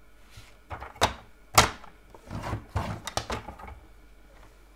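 Paper being scored on a plastic paper trimmer: a series of sharp clicks and knocks from the tool, the loudest about one and a half seconds in, with a short scraping slide in the middle.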